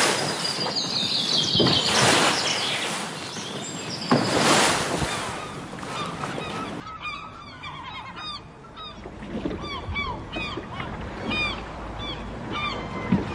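Water sloshing and splashing in a few swishing surges. From about halfway through, a dense run of short, repeated honking bird calls takes over.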